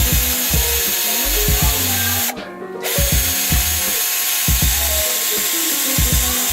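Background instrumental hip-hop beat with a deep bass line, a kick drum and a simple melody. Its upper part drops out for about half a second a little after two seconds in.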